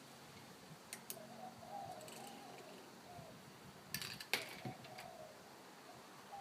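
Lego plastic pieces clicking as the AT-TE's missiles are pushed back into their launchers: a few light clicks, with the loudest cluster about four seconds in.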